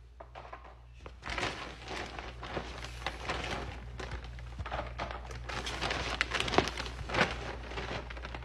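Large plastic bag of pet litter pellets crinkling and rustling as hands dig in and scoop out litter, starting about a second in, with many small sharp clicks.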